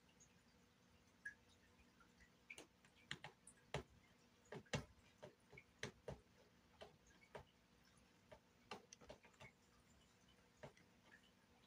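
Faint, irregular clicks and taps of a cat's paws and claws striking and scratching the carpeted cat tree during play, bunched in the middle with the sharpest tap a little under five seconds in.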